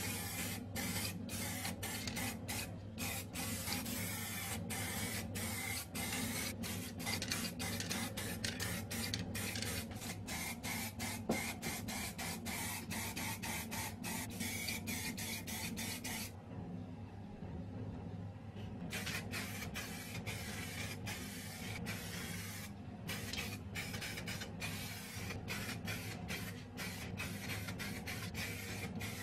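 Aerosol can of acrylic spray primer hissing in rapid short bursts, a couple each second, broken by brief pauses. The hiss stops for about three seconds past the middle, then resumes. A steady low hum runs underneath.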